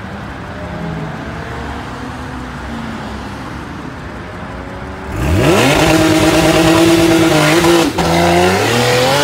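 Porsche 911 flat-six engine at a low idle, then about five seconds in it revs sharply up and holds high revs, dipping for a moment near the end before climbing again.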